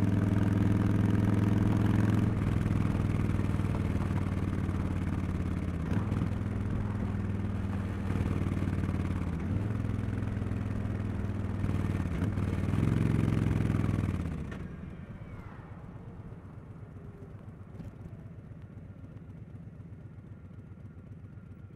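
Harley-Davidson Street Bob 114's Milwaukee-Eight V-twin, breathing through a Cobra Neighbor Hater slip-on exhaust, running steadily under way. Its note dips briefly a few times and swells once near two-thirds of the way in. Then it drops away sharply to a much quieter low pulsing sound.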